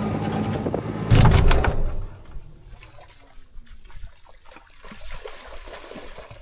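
Utility vehicle engine idling, with a loud rush about a second in, then the engine sound stops. After that come faint, scattered splashes and sloshing as dogs wade into a shallow pond.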